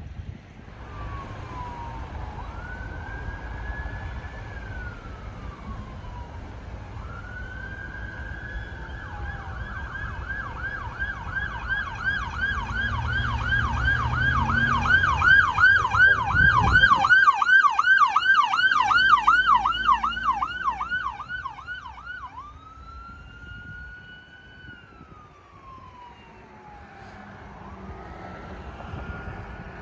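Emergency vehicle siren going by. It starts as a slow wail, switches to a fast yelp at about three cycles a second as it comes closest and loudest, then goes back to a slow wail as it fades off. Under it is a low vehicle rumble that stops about two-thirds of the way through.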